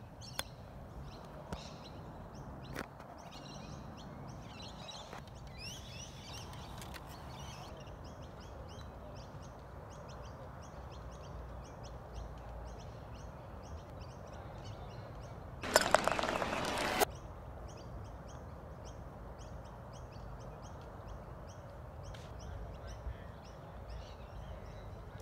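Small birds chirping through the outdoor background. A sharp click of a golf club striking the ball on a chip shot comes just after the start. Around the middle there is a loud, harsh screech lasting about a second and a half, most likely a bird's call.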